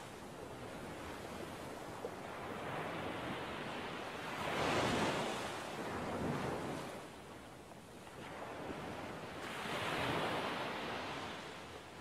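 Ocean waves washing in, a steady rush that swells and fades in slow surges, loudest about five seconds in and again near the end.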